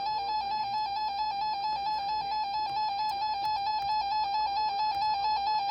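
Emergency Alert System attention signal: a steady two-tone alarm tone near 900 Hz with a fast, even warble, held without a break. It is the alert tone that announces an incoming emergency broadcast, here a severe thunderstorm warning.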